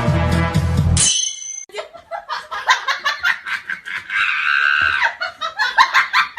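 Dramatic background music that cuts off about a second in, followed by a burst of rapid, choppy laughter, a comedic laugh sound effect.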